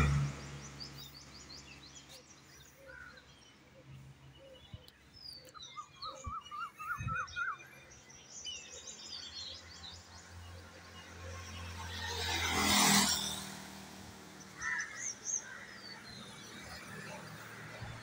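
Small birds chirping and trilling, with a run of quick repeated notes early on, and a vehicle passing on the road, its noise swelling and fading about two-thirds of the way through.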